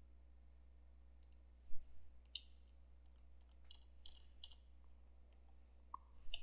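About a dozen faint computer mouse clicks and keystrokes at irregular intervals while text is edited, the loudest a little under two seconds in, over a low steady hum.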